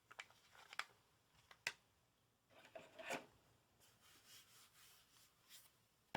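Faint handling of a playing-card deck's packaging: a few scattered clicks, then soft rubbing and rustling for a few seconds, and one sharp click at the end.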